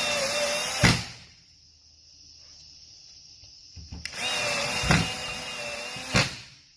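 A power drill driving self-tapping screws in two runs: a short one of about a second at the start, and a longer one of about two seconds near the end. Each run is a steady motor whine that ends with a thump.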